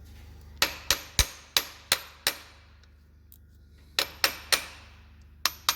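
Steel hammer tapping sharply on metal valve gear in a truck diesel's cylinder head, each blow ringing briefly. There are six quick taps, a pause of over a second, three more, then two near the end.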